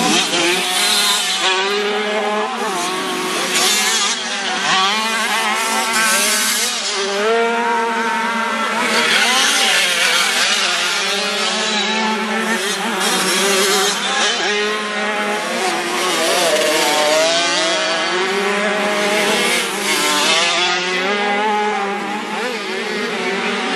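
A pack of classic 50cc two-stroke motocross bikes racing, their high-pitched engines revving over one another. The pitch keeps rising and falling as riders open and close the throttle over the jumps.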